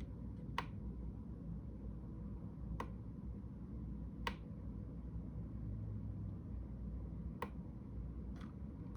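About five sharp, isolated clicks, irregularly spaced a second or more apart, over a low steady hum.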